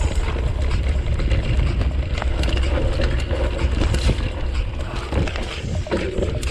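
Bicycle riding downhill on a dirt forest trail: tyres crunching over dirt and dry leaves, with frequent rattling clicks and knocks from the bike over bumps. Wind buffets the microphone with a steady low rumble.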